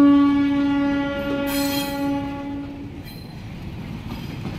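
Diesel locomotive horn sounding one long steady blast of about three seconds as the engine passes, then the passenger coaches rolling by with the wheels clattering.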